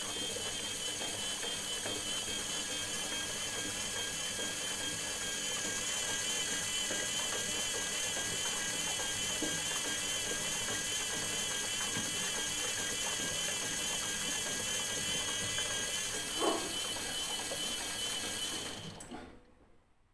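Samsung 7 kg washing machine's brushed motor, running on newly replaced carbon brushes, drives the drum by its belt. It is a steady mechanical running sound with a slightly wavering high whine, and it winds down and stops about nineteen seconds in.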